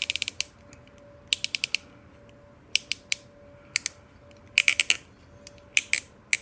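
A freshly stretched tobacco pipe tenon being twisted into the pipe's shank, giving about five bursts of quick, sharp clicks as the stem sticks and slips. The fit is tight enough that it needs a little lubrication.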